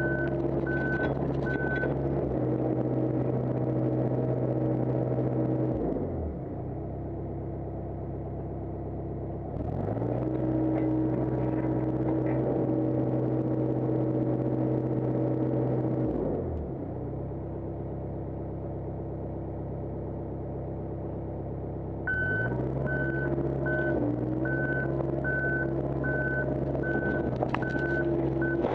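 John Deere 85G excavator's diesel engine running at working speed, dropping to a lower idle about six seconds in and again about sixteen seconds in, and rising back each time. A travel alarm beeps steadily at the start and through the last six seconds.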